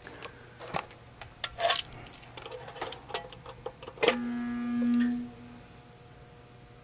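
Scattered light clicks, then a sharp click about four seconds in as the compressor of an American Standard Heritage condenser is energised, followed by a loud steady hum for about a second that swells and cuts off. This is a struggling compressor humming without running properly, the sign of a failing compressor trying to start.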